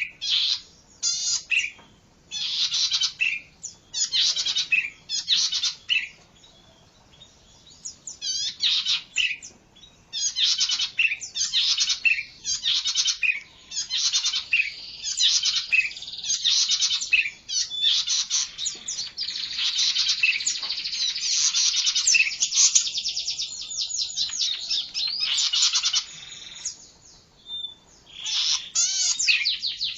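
Oriental magpie-robin (kacer) singing loud, rapid phrases of high, fast-repeating notes, with short pauses between phrases at first and an almost unbroken run of song for several seconds in the middle.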